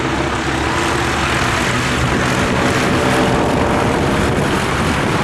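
Piston engines and propellers of two aerobatic biplanes droning steadily overhead, growing a little louder partway through.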